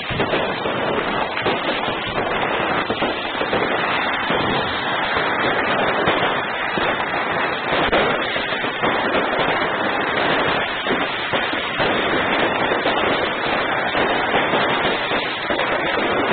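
Dense, unbroken barrage of fireworks going off: many overlapping crackles and bangs.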